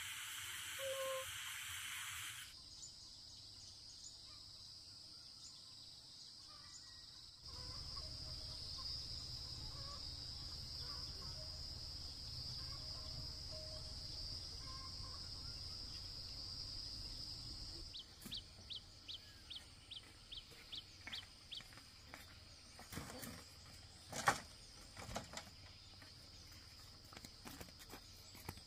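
Countryside ambience: a steady high-pitched insect drone, then a run of short chirps at about two or three a second, with scattered clicks and one louder sharp click.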